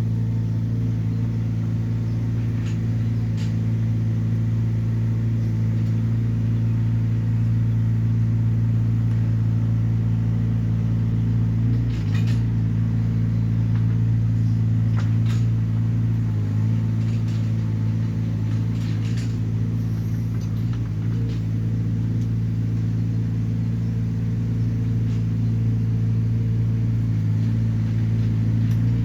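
Small Hyundai excavator's diesel engine running at a steady speed, with a few sharp knocks and clanks scattered through the middle.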